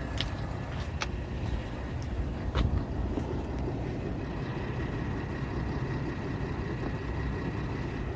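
Vehicle engine rumble heard from inside the cabin of a 2015 Porsche Cayenne, steady and low, with a couple of sharp taps about a second and about two and a half seconds in. The owner's complaint is an engine tapping or knocking noise heard in the cabin.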